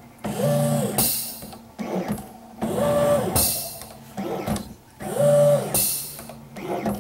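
Wizard computerized mat cutter running a cut. Its motor whine rises in pitch, holds and falls away, followed each time by a short hiss, three times about every two and a half seconds.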